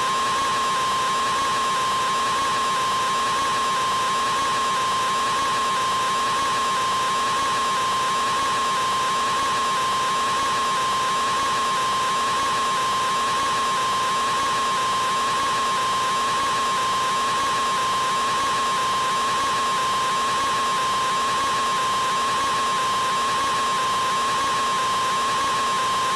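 A man's scream drawn out into one unbroken, steady high-pitched tone that never changes in pitch or loudness.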